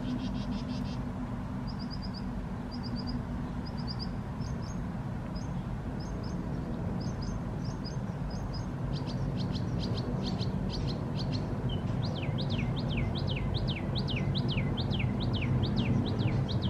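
Songbirds chirping outdoors: short twittering phrases, then in the last few seconds a run of repeated down-slurred notes, about two a second. A steady low rumble sits underneath.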